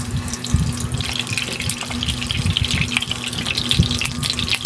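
Cooking oil poured in a thin stream into a nonstick frying pan. From about a second in, a fine crackling sizzle starts as the oil heats in the pan.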